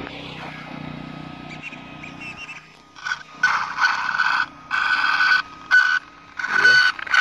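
Electric RC car's drivetrain giving a run of harsh, grating bursts each time the throttle is applied, from about three seconds in. This is a strange noise that the owners put down to the pinion gear meshing too loosely with the spur gear.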